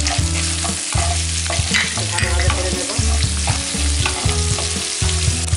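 Cubed onions sizzling in hot oil in a kadai, stirred and scraped with a wooden spatula, with a low, choppy hum underneath.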